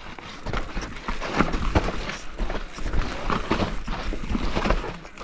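A carbon enduro mountain bike, a 2019 YT Capra CF Pro Race, rattling and clattering as it is ridden fast down a rough trail: a rapid, irregular run of knocks and clicks from the tyres and frame hitting roots and rocks.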